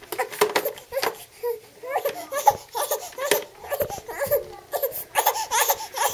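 Infant fussing in short, choppy sobbing cries, mixed with clicks and knocks of the swing's plastic tray being lowered and latched in place.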